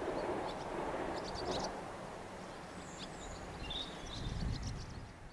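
A 22000 class ICR diesel multiple unit fading into the distance, its rumble dying away over the first couple of seconds, while birds chirp.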